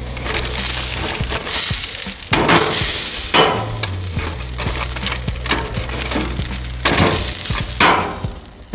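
Beef burgers sizzling on foil on a barbecue grill, with a metal spatula scraping underneath and turning them. A music track's bass line runs underneath.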